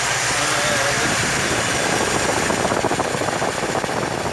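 Truck's 400 V8 engine running warm. From about two seconds in it runs with a dense, uneven pulsing.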